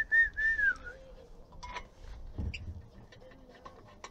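A person whistles three short notes, the last one longer and falling at its end. A few light clicks and a dull knock follow as the spare wheel is worked on.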